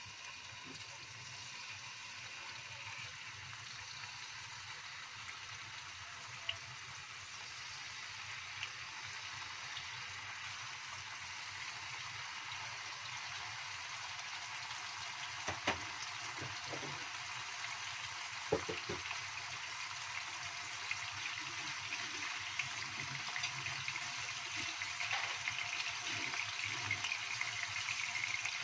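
Salmon steaks sizzling in hot oil in a wok, a steady hiss that grows slowly louder as the pan fills with steaks. A few light knocks sound about a third and about two thirds of the way through.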